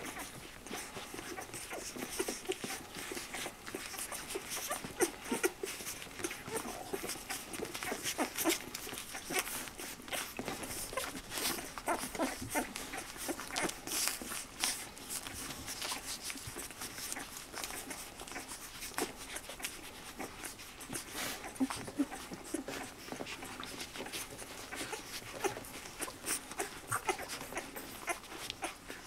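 Newborn puppies nursing from their mother: many small suckling clicks and smacks, mixed with little squeaks and whimpers.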